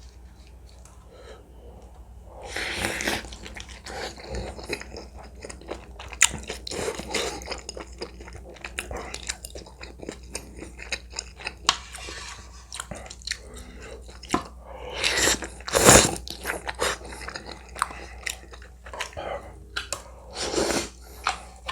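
Close-miked eating of ramen with kimchi: steady chewing and biting with crisp crunchy clicks. There are several longer noisy bursts, the loudest about two-thirds of the way in.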